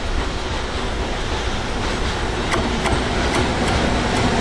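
Freight train passing: a steady rumble and rush of wheels on the rails, with several sharp clicks in the second half.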